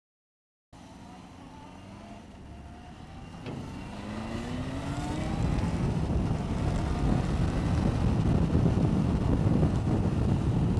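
Motorcycle engine accelerating, its pitch rising in a few steps as it goes up through the gears, while wind noise on the microphone builds to a loud steady rush. It starts abruptly about a second in.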